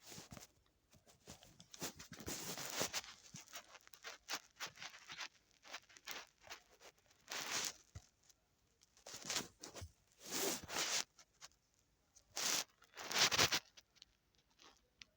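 Irregular rustling and scraping noises in short bursts, with the loudest ones about two thirds of the way through and again near the end.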